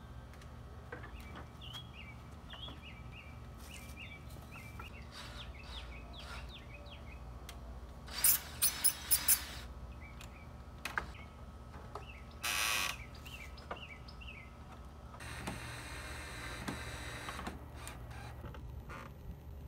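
Cordless drill driving screws into a wooden frame: four quick trigger bursts about eight seconds in, then one short run a few seconds later. Birds chirp in the background during the first few seconds.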